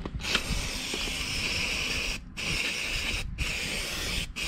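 Würth aerosol spray can sprayed in four spurts: a long spurt of about two seconds, then three shorter ones with brief breaks between. The spraying is part of an air filter change on a motocross bike.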